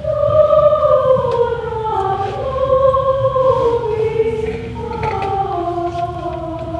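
Student concert choir singing in harmony, several voice parts holding long notes that slide slowly downward, with a new phrase beginning about five seconds in.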